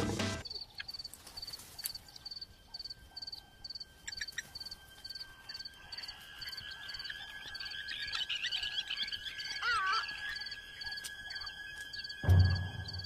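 Natural outdoor ambience of insects and birds. A high, short chirp repeats about two to three times a second over a steady high insect drone, and a bird warbles briefly about eight to ten seconds in. A deep, low thud comes near the end.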